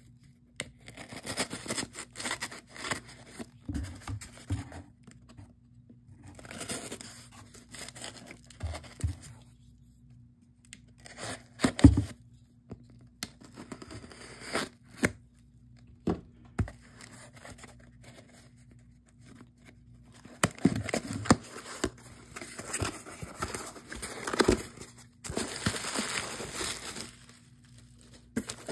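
Filament-reinforced packing tape on a small cardboard box being slit with a knife and torn off, in irregular stretches of tearing and scraping. The cardboard knocks sharply now and then, loudest about halfway through, and the flaps scrape as they are pulled open near the end.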